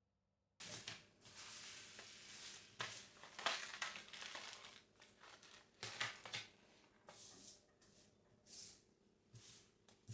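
Irregular rustling and crunching handling sounds, starting suddenly about half a second in and going on in uneven bursts.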